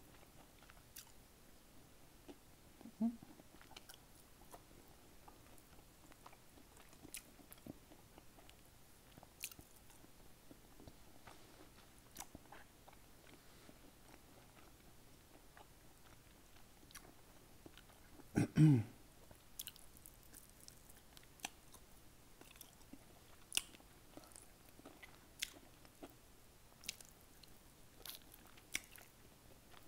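Close-miked eating sounds: a person chewing fried chicken, with scattered sharp wet mouth clicks and smacks and one louder mouth sound a little over halfway. Near the end she gnaws meat off a chicken bone.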